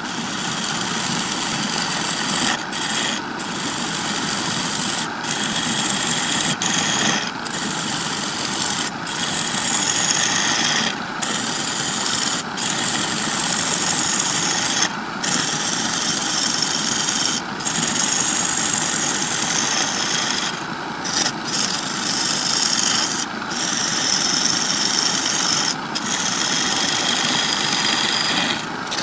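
Wood lathe running while a gouge cuts into a spinning laminated wood blank: a steady rough cutting noise over the motor's hum. Every second or two it briefly drops away as the tool eases off the wood, and a faint high whine wavers in pitch.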